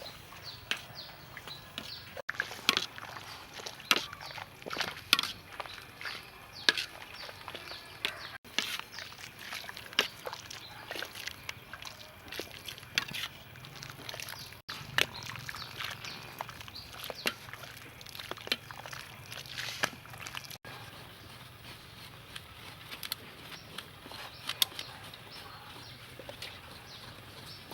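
Irregular sharp clicks and knocks, about one or two a second, over a quiet outdoor background, thinning out in the last several seconds.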